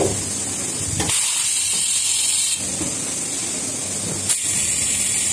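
Automatic shrink wrapping (web sealer) machine running with a steady hiss over a low hum. A brighter, higher hiss comes in about a second in, stops about halfway through, and starts again with a sharp click a little after four seconds in.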